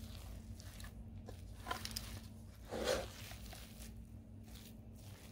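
A metal spoon stirring and scraping a thick, moist kabab mixture of shredded chicken, mashed chana dal and egg in a metal pot: soft squishy strokes, with one louder stroke about three seconds in. A low steady hum runs underneath.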